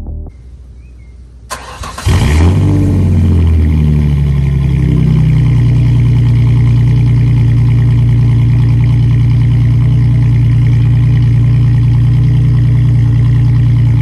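An engine starting about two seconds in, just after a click: it revs up, drops back over a couple of seconds, then settles into a steady idle.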